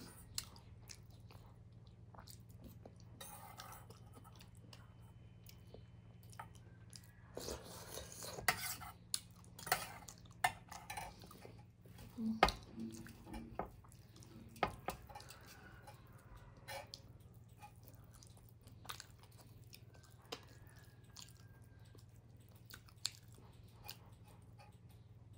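Close-miked eating sounds: a person chewing soft millet dhido, with scattered short clicks and clinks of a spoon and fingers against a metal bowl and plate.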